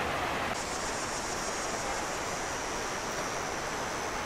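Steady rush of the Genesee River's waterfall and churning rapids in the gorge. A thin high whine joins about half a second in.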